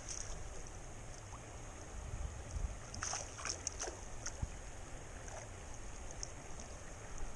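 Shallow mountain stream running steadily, with a few small splashes and clicks around three to four seconds in as a landed fish moves in a landing net held in the water.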